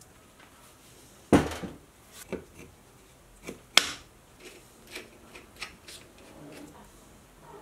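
A few sharp knocks and clicks of parts being handled and fitted on a bench grinder's shaft: an MDF honing wheel being seated and a nut and washer put on, with light rubbing between. The loudest knock comes about a second in, another near the middle.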